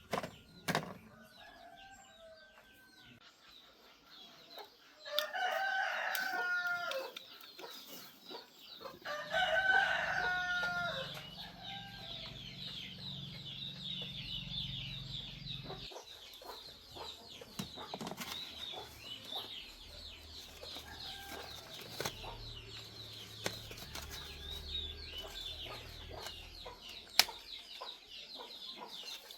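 A rooster crowing twice, about five and nine seconds in, each crow lasting about two seconds, followed by a steady high-pitched shrill drone with scattered small clicks.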